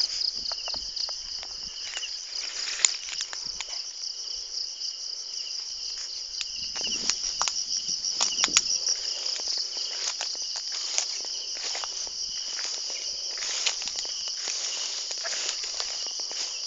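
A steady, pulsing high-pitched chorus of insects shrilling, with scattered footsteps crunching through dry grass and leaf litter and a few louder rustles and knocks about seven to nine seconds in.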